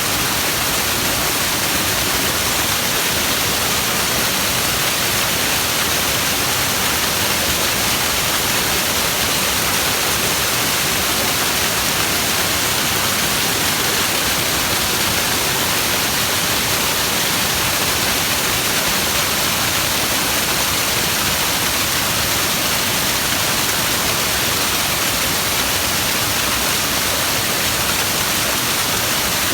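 Waterfall running full, its flow swollen with typhoon rain: a loud, steady, even rush of falling water, heaviest in the hissing upper range.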